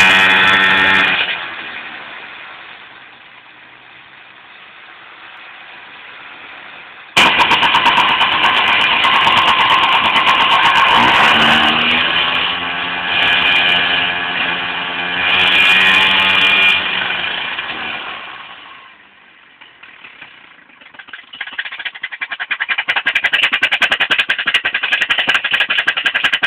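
A small vehicle engine runs with its exhaust piped into a plastic bottle fitted over the tailpipe. The engine is loud at first and drops low after about a second. It comes back loud about seven seconds in and is revved, its pitch rising and falling. Near the end it dips, then settles into a fast, even putter.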